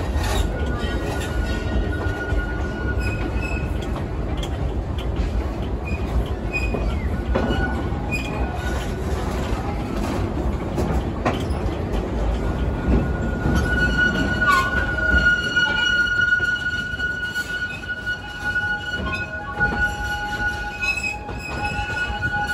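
Theme-park railway train rolling along the track: a steady rumble of the coaches on the rails, with a high, steady wheel squeal that comes in briefly at the start and holds through the last part. The low rumble eases about two-thirds of the way through while the squeal carries on.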